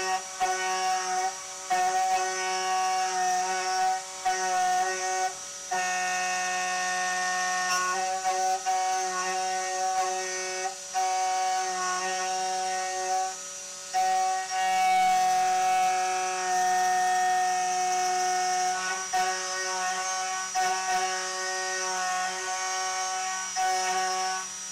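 A 2.2 kW CNC spindle driving a 6 mm two-flute carbide endmill through 10 mm aluminium plate: a loud, steady, singing machining tone of several pitches. It drops out briefly every few seconds as the cutter works round the circular cut.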